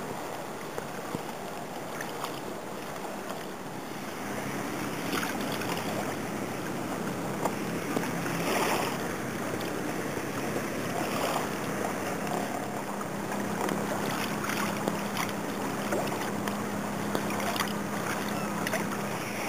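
Water lapping and splashing against a kayak hull on calm sea, with wind on the microphone and a few light knocks. A faint steady low hum sets in about four seconds in.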